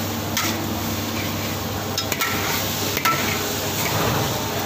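Metal spatula scraping and knocking against a wok while stir-frying rice noodles with egg, with several sharp clanks over a steady sizzle.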